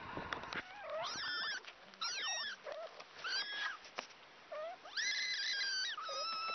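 Young kittens mewing again and again: short, high-pitched calls, some rising and falling, with one longer held mew about five seconds in.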